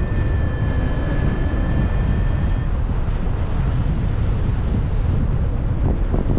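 Strong wind buffeting the action camera's microphone in flight: a loud, steady low rumble. A steady high electronic tone sounds over it and stops about two and a half seconds in.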